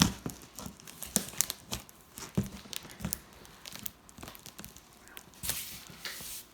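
A large cardboard delivery box being torn open: tape and cardboard ripping and packaging crinkling in irregular snaps and crackles, with a longer tear near the end.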